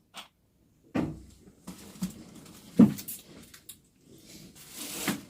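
A few sharp knocks and clunks of things being handled, like a cupboard door or hard objects set down, the loudest about three seconds in, with a short hiss near the end.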